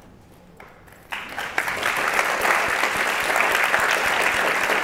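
Audience applauding: clapping breaks out about a second in, builds quickly and then holds steady.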